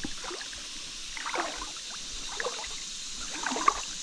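Shallow creek water splashing and sloshing in short irregular bursts, over a steady high hiss.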